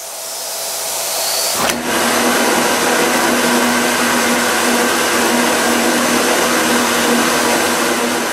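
Vacuum cleaner running at full suction through a length of plastic drainpipe: a loud, steady rushing whine over a low hum. About two seconds in there is a sharp click, after which the low hum comes in stronger.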